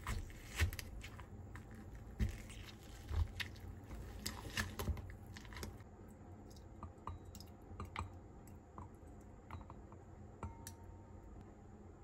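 Fresh strawberries being mashed with a metal potato masher in a glass bowl: irregular thumps and clinks. After about six seconds these give way to lighter, sparser taps of a wooden spoon against glass as the pulp is scraped out.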